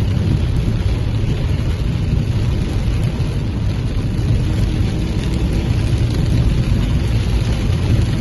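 Heavy rain falling steadily, under a strong low rumble.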